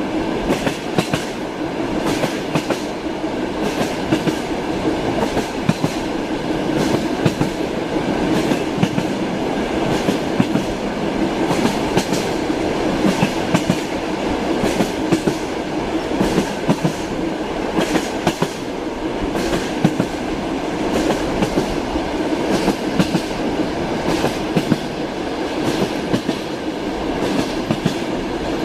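A moving train's wheels clattering over rail joints: a steady rumble with irregular knocks.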